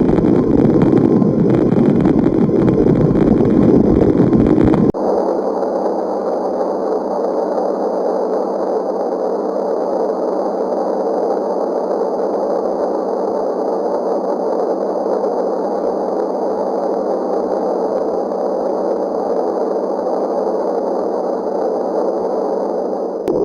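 Steady, noisy rumbling drone of the kind presented as 'space sounds'. About five seconds in it switches abruptly to a thinner, steady drone with the deep rumble gone.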